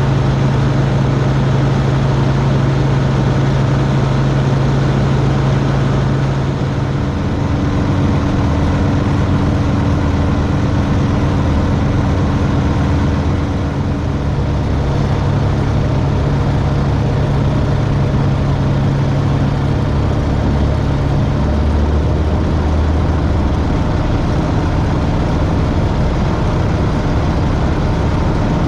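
Steady drone of the RV-12iS's Rotax 912 iS flat-four engine and propeller. The engine note shifts in pitch a few times, dropping about seven seconds in, returning partway through, and shifting again near three-quarters of the way.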